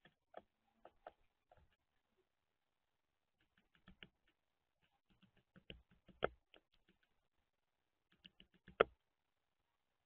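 Northern flicker pecking into cracked corn and seed in a feeder tray: groups of quick, light taps and clicks, a few sharper knocks among them, the loudest about six seconds in and near the end.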